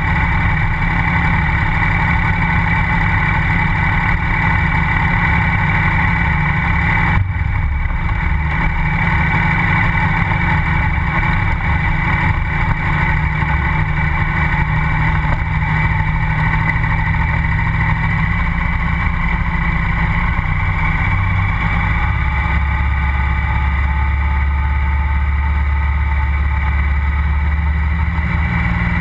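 KTM 990 SMR's V-twin engine running steadily at low speed, heard right beside its exhaust silencer, with a brief change in tone about seven seconds in.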